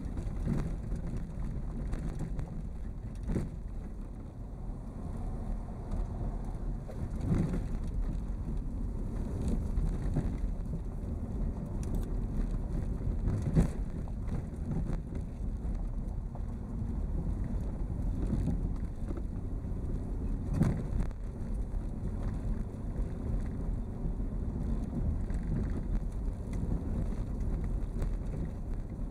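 Vehicle travelling along a forest road, heard from on board: a steady low rumble of tyres and running gear with wind on the microphone, and a few sharp knocks from bumps.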